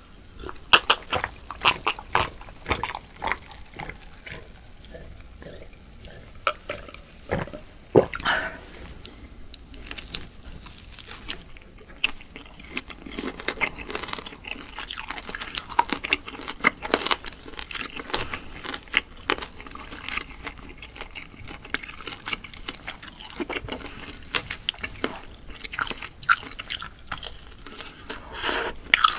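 Close-up eating sounds: chewing and biting pieces off a sauce-dipped grilled chicken skewer, with many small wet mouth clicks and crunches.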